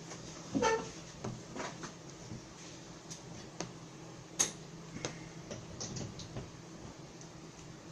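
Scattered light clicks and knocks from handling small things on a desk. The sharpest click comes about four and a half seconds in.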